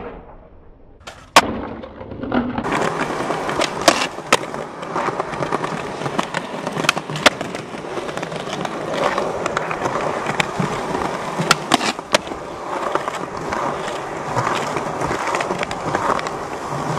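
Skateboard: a single sharp clack of the board hitting the ground about a second and a half in. Then polyurethane wheels roll steadily over concrete, broken by repeated sharp clacks of tail pops and landings.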